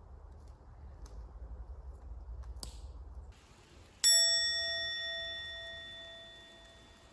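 A single bright bell-like ding about four seconds in, ringing with several overtones and fading away over about three seconds. Before it, a low outdoor rumble that cuts off abruptly.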